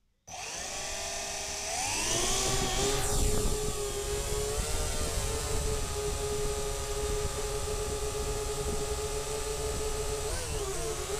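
Quadcopter drone's motors and propellers spinning up, rising in pitch over the first couple of seconds, then a steady whine over a low rumble of propeller wash as it lifts off and climbs, heard close from the drone's own camera. The pitch wavers briefly near the end.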